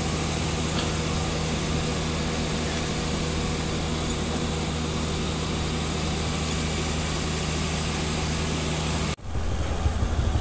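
Small motorcycle engine idling steadily with an even, unchanging hum. About nine seconds in, the sound cuts off abruptly and comes back as a louder, rougher low rumble.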